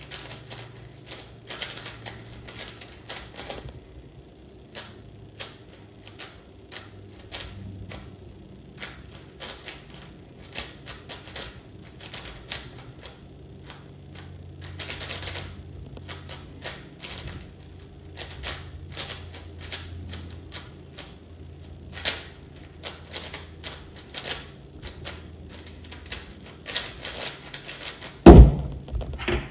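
Qiyi WuShuang M 5x5 speed cube being turned by hand: a run of quick, irregular plastic clicks and clacks of layers turning, with a loud thump near the end.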